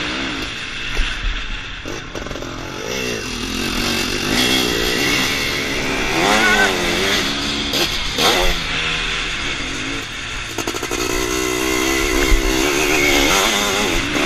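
EML Zabel 700cc sidecarcross outfit's engine under hard riding, its pitch rising and falling again and again as the throttle opens and closes, with wind rushing over the onboard microphone.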